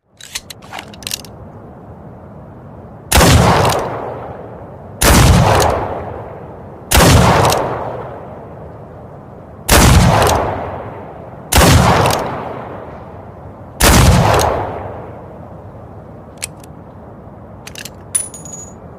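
Revolver sound effect: a few light clicks, then six shots about two seconds apart, each with a long echoing tail, followed by a few more metallic clicks and a short ring near the end.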